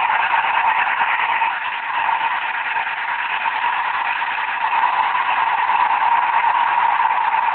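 Steady static hiss from an 11-metre band radio transceiver's speaker while it is tuned around 27.46 MHz, with no station audible.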